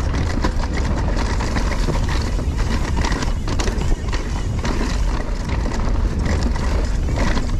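Husqvarna Mountain Cross MC4 electric mountain bike ridden at speed on a dirt singletrack: steady rushing wind and tyre noise with a constant stream of clattering knocks and rattles from the bike over the rough trail.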